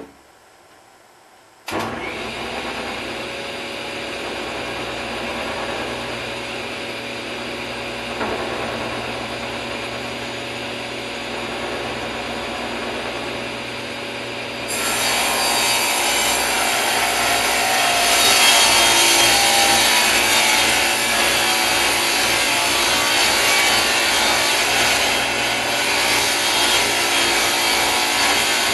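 Table saw switched on about two seconds in and running steadily. About halfway through, its blade starts cutting a full sheet of 3/4-inch plywood, and the sound gets louder and hissier for the rest of the cut.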